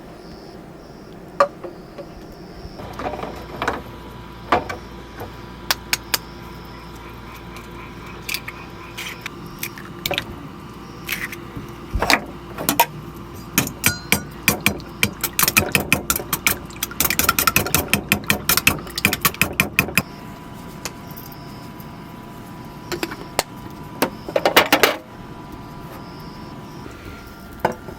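Cooking sounds: utensils clinking and knocking against cookware. The knocks come quickly between a third and two thirds of the way in, over a steady hum that stops about then.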